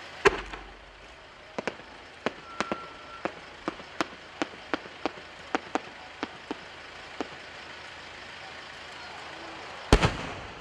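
A 10-inch firework shell fired from its mortar with a loud thump, then a dozen or so sharp cracks from the small report bombs fixed to its rising tail. Near the end comes the loud boom of the main shell bursting.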